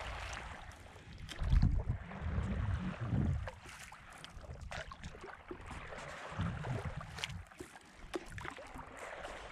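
Water lapping and splashing against a stand-up paddleboard as it is paddled, with many small drips and splashes. Low rumbles come and go, loudest between about one and a half and three and a half seconds in.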